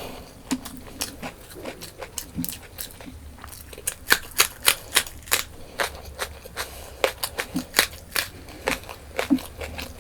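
Close-miked ASMR eating: chewing with rapid sharp crunches and mouth clicks, coming thicker and louder from about four seconds in.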